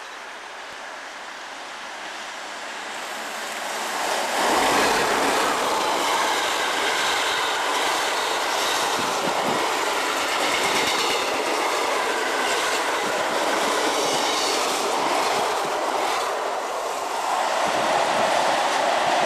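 Electric passenger train approaching and passing close by. The sound builds over the first few seconds into a loud, steady rush of wheels on rail as the carriages go past, dips briefly near the end, then rises again.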